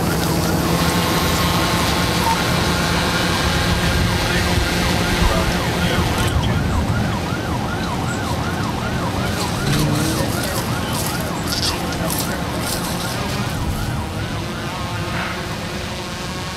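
Emergency vehicle siren in a fast yelp, its pitch rising and falling about two to three times a second, fading near the end.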